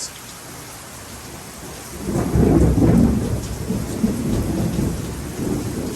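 Steady rain falling, with a roll of thunder that rises about two seconds in, peaks shortly after and slowly rumbles away.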